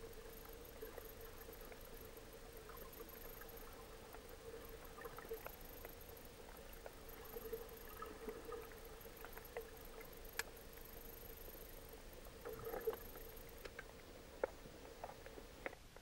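Faint underwater ambience on the seabed: a steady low hum with many small scattered clicks and crackles, a few sharper clicks in the second half, and a faint high whine that stops near the end.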